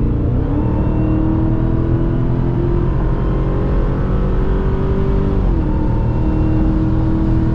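Dodge Hellcat's supercharged 6.2-litre Hemi V8 pulling away under acceleration. The engine note steps up in pitch about half a second in, holds steady, and dips slightly about five and a half seconds in before holding again.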